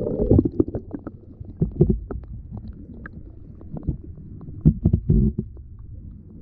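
Muffled underwater sound from a GoPro held beneath the water: a loud rush as it goes under at the start, then irregular low rumbling thumps of water moving around the camera housing, with scattered faint clicks.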